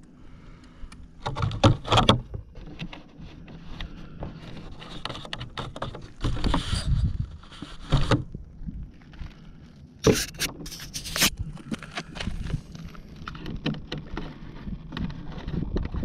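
Traxxas Slash 2WD RC truck driving over loose gravel, heard from on board: tyres crunching and stones rattling, with the truck clattering loudly over bumps about two seconds in, around six to eight seconds in and again around ten to eleven seconds in.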